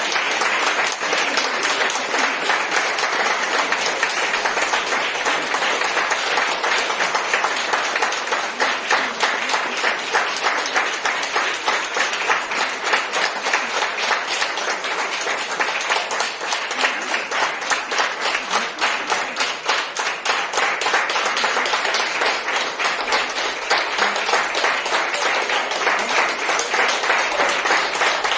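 Concert audience applauding, many hands clapping densely and steadily.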